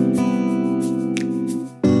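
Background music on acoustic guitar: a held chord rings, fades briefly near the end, and a new chord is struck just before the end.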